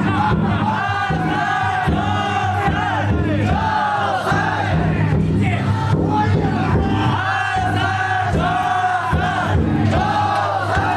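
A large crowd of festival bearers singing and chanting together, many voices overlapping in rising and falling song phrases.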